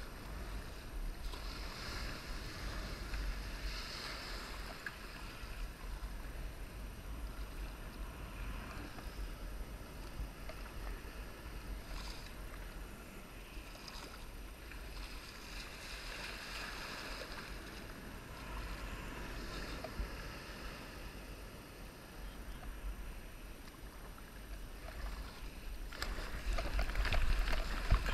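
Sea water sloshing around a kayak and wind buffeting the deck-mounted camera's microphone with a low rumble. Near the end the rush of broken whitewater surf around the kayak gets louder.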